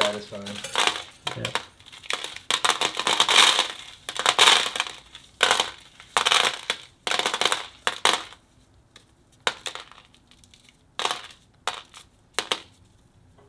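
Dried popcorn kernels being twisted off the cob by hand and showering into a bowl: a crunching rattle in repeated bursts, thinning to a few scattered clicks over the last few seconds.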